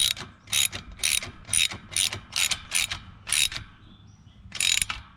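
Socket wrench ratchet clicking in repeated quick strokes, about two a second, as a 13 mm nut is tightened onto a bolt. The strokes pause about three and a half seconds in, then one more stroke follows.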